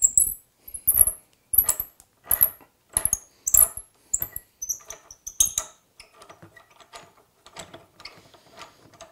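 Hand ratchet working loose the mounting bolt of a motorcycle frame slider: a stroke about every two-thirds of a second, each a burst of clicks with a short high chirp. In the last few seconds the clicking becomes quicker and quieter.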